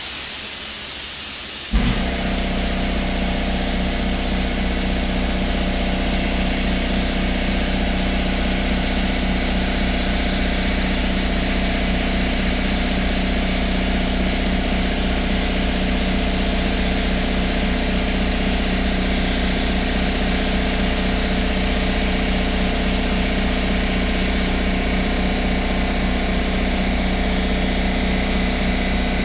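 Air spray gun hissing steadily as paint is sprayed. About two seconds in, an air compressor motor kicks on and runs steadily under it, topping up the pressure the gun is drawing down.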